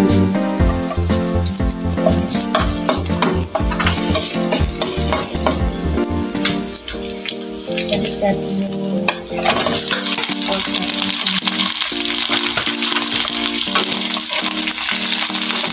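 Chopped onion and garlic sizzling in hot oil in a wok, stirred with a metal ladle that clicks against the pan. About nine or ten seconds in, the sizzle grows fuller and louder as pork pieces go into the hot oil. Background music plays throughout.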